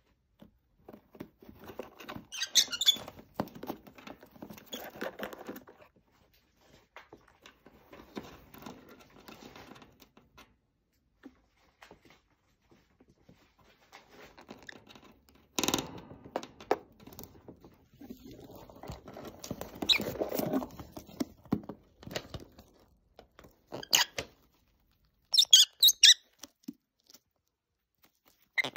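Lovebirds giving short, high squeaky chirps, a few at a time with a cluster near the end, over scratchy rustling and crinkling of shredded paper and cardboard as they move about and chew. One sharp knock about halfway through.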